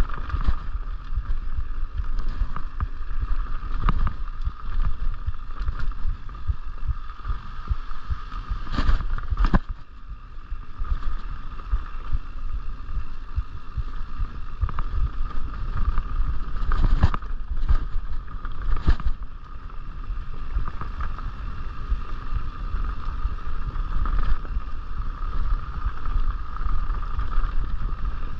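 Mountain bike rolling fast down a dirt singletrack, heard from the rider: tyres on packed dirt and wind buffeting the microphone, with a steady high buzz throughout. A few sharp knocks as the bike hits bumps, two about a third of the way through and three more just past the middle.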